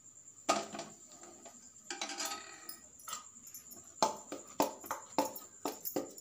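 Metal spoon clinking and scraping against a stainless-steel bowl while stirring ground flour with ghee, in quick taps about three or four a second from about four seconds in. A single metal clink comes about half a second in.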